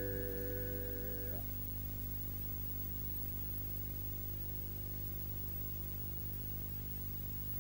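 The end of the background music: a held chord that stops about a second and a half in, leaving a faint steady low drone.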